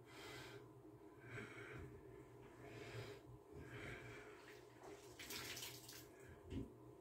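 Faint breathing, a breath about every second and a half, over a faint steady hum. A little past halfway, bath water swishes briefly as a hand moves through it.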